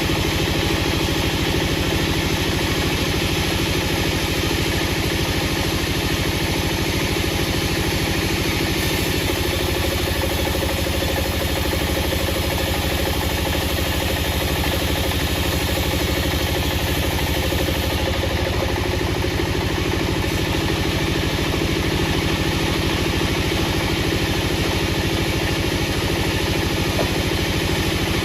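Wood-processing machinery running steadily, an engine-like hum at an even level with no revving or change in load.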